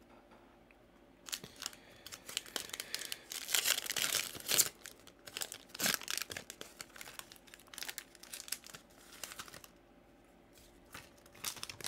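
Foil trading-card pack wrapper being torn open and crinkled by hand, an irregular crackling that is loudest about four seconds in.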